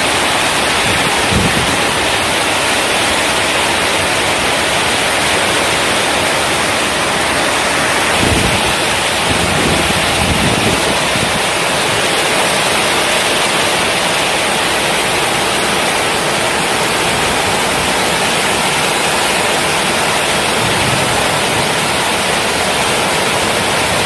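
Heavy tropical downpour: a loud, steady rush of rain. A short low rumble comes and goes about eight seconds in.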